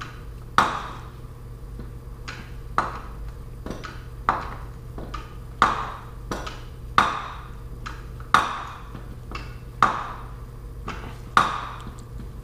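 Hammer blows on metal: a sharp ringing strike about every second and a half, with lighter taps between.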